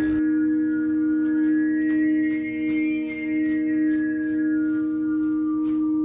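Tibetan singing bowl sounding a steady, sustained tone with higher overtones, its loudness swelling and dipping slowly. Faint clicks come about two to three times a second.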